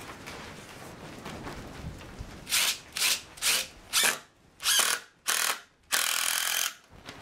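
Cordless drill driving a screw into a wooden stopper block, run in six short bursts about half a second apart, then one longer run near the end.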